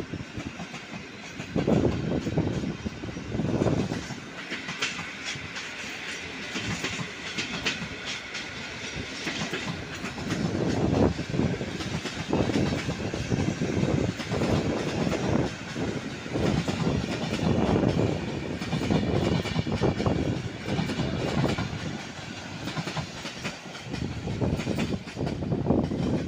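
Train running past, its wheels clacking over the rail joints in a repeated, uneven rhythm over a steady rolling rumble.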